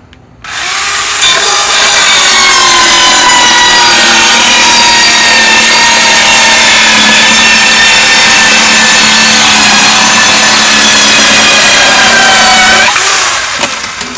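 Electric power saw cutting through wood at a steady, unbroken speed without stalling: the cut keeps the same sound the whole time. The motor winds up about half a second in and spins down near the end.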